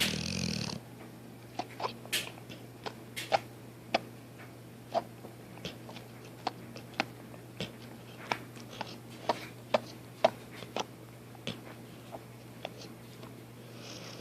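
A dog snorts once at the start, then smacks its mouth in a long string of short, irregular sharp clicks, with a faint snuffle near the end.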